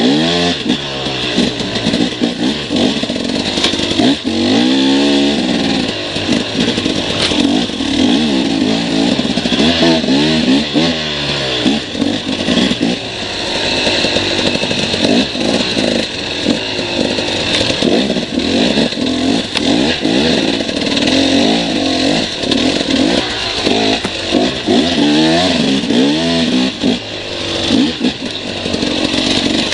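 Motorcycle engines revving hard again and again, their pitch sweeping up and falling back with each burst of throttle.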